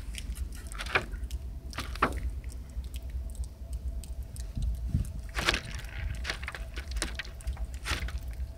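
Water dripping and trickling from pellet holes in plastic gallon water jugs, with a few short sharp clicks over a steady low rumble.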